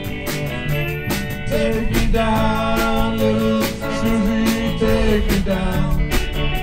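Live band playing a rock song: electric guitars, bass and drum kit keeping a steady beat, with a lead melody line bending in pitch over the top.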